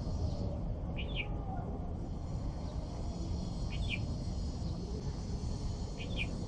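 A bird repeating a short, high double-note call three times, about every two and a half seconds, over a steady low rumble.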